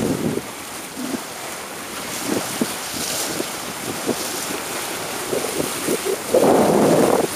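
Wind buffeting the microphone over the rush of waves and water, recorded from a boat moving through choppy sea. There is a louder burst of buffeting about six and a half seconds in.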